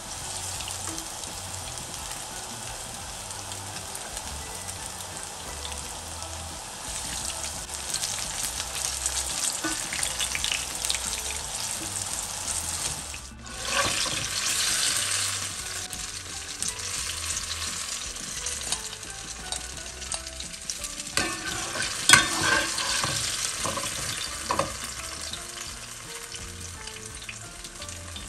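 Banana-and-egg fritters frying in hot oil in a pan: a steady crackling sizzle, with a spoon and then a wire skimmer stirring them and scraping the pan. The sizzle breaks off briefly about halfway and comes back louder. In the second half there are a few sharp metal clicks of the utensil against the pan.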